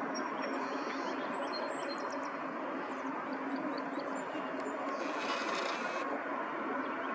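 A steady low rumble of background noise, with small birds chirping and twittering in short high notes over the first few seconds, and a brief hiss about five seconds in.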